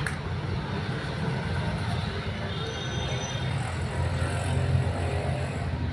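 Steady low engine rumble, as of a motor vehicle running at idle.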